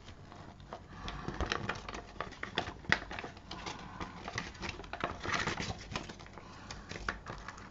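Hands handling paper sheets and a clear plastic compartment parts box: irregular light clicks and paper rustling.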